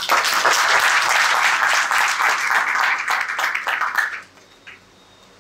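Audience applauding, many hands clapping at once for about four seconds, then dying away.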